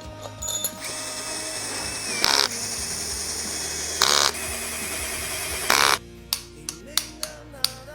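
A handheld power tool running steadily for about five seconds, with three short louder bursts, over background music. It stops about six seconds in, and a series of sharp clicks follows.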